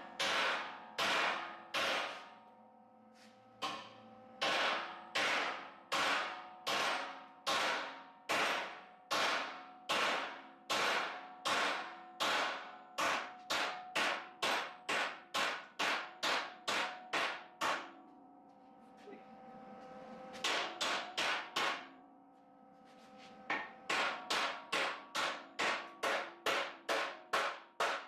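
Hammer striking steel over and over, at about two blows a second in several runs with short pauses between them. Each blow rings like struck metal.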